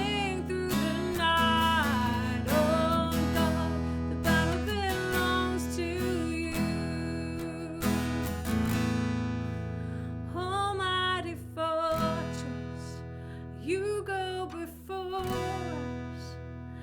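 Strummed acoustic guitar playing a worship song, with a voice singing gliding melodic lines over it.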